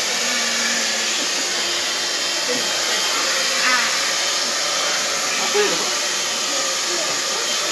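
Steady, loud rushing of air from a small electric blower, with faint voices under it.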